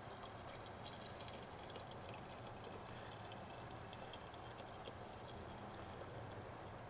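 Hot water being poured from a kettle into a narrow-necked plastic bottle: a faint, steady trickle.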